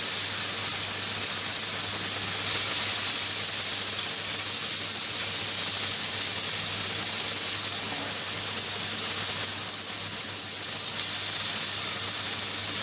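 Freshly washed, still-wet vegetables sizzling in hot oil in a wok: a loud, steady hiss, swelling a little near the start and easing slightly in the last few seconds.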